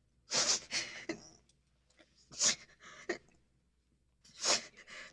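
A woman crying, breathing in shaky, breathy sobs that come in three bursts about two seconds apart.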